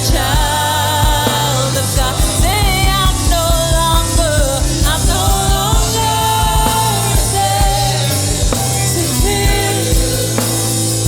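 Worship song played by a band, with a singer's voice carrying the melody over a steady drum beat and bass.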